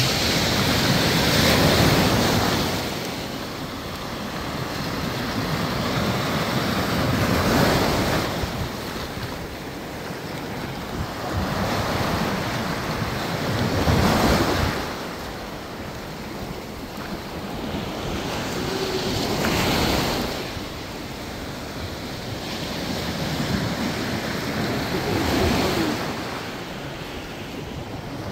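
Rough sea waves surging and washing in, one loud swell about every six seconds, with strong wind buffeting the microphone.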